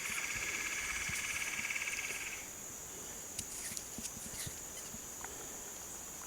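Insects chirring steadily at a high pitch. Over them, a louder, rapidly pulsing animal call runs for about the first two and a half seconds. A few faint clicks follow.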